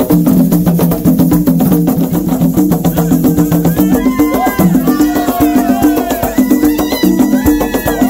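Live traditional Congolese drumming on tall wooden hand drums with skin heads, struck by hand in a fast, steady rhythm of deep pitched tones. From about halfway, high sliding tones come in over the drumming.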